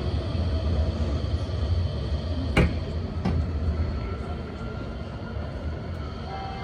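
Low steady rumble of city street traffic that slowly fades, with two sharp clicks less than a second apart a little before halfway.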